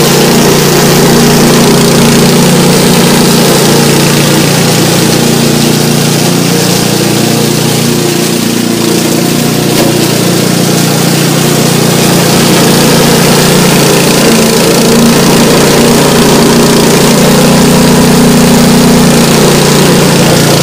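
Remote-controlled tracked lawn mower running steadily as it cuts through tall grass and brush, its engine a constant hum with a slight dip in level about eight seconds in.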